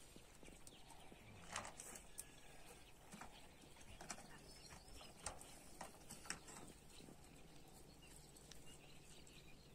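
Faint sounds of a Kangal dog eating from a metal pan: scattered short crunches and clicks, a few of them sharper, over an otherwise near-silent background.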